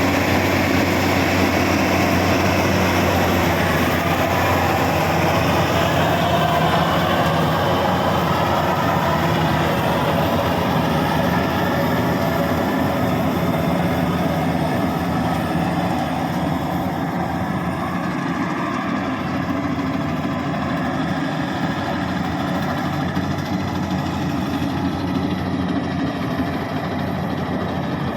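Rice combine harvester running steadily, its engine giving an even low hum under a noisy mechanical wash. It grows slightly quieter and duller over the last ten seconds or so.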